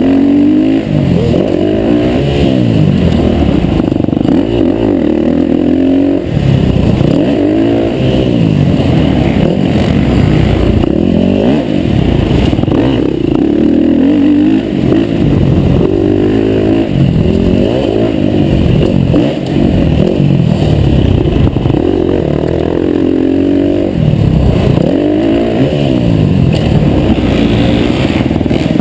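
KTM 350 four-stroke single-cylinder dirt-bike engine heard up close from the bike itself, revving hard and backing off over and over as the rider accelerates and brakes around a dirt track, its pitch rising and falling every second or two.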